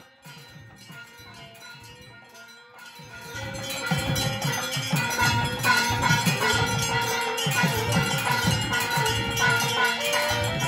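Metal temple bells ringing over and over during an aarti, growing loud about three seconds in after a quieter start.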